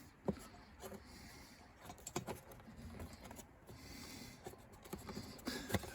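Faint scattered clicks and light handling knocks over low background noise, a sharper click near the end.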